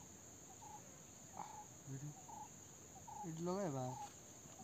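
Steady high-pitched drone of insects, with short chirping notes repeating every half second or so. About three-quarters of the way through, a man's voice briefly rises over it.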